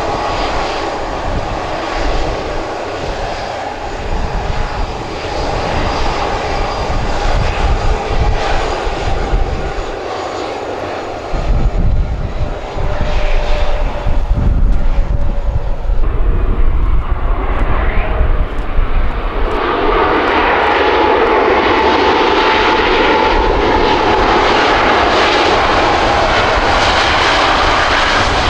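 Turbofan engines of an Airbus A321neo running on the runway: a steady jet whine over a low rumble, which swells into a louder, fuller rush about twenty seconds in.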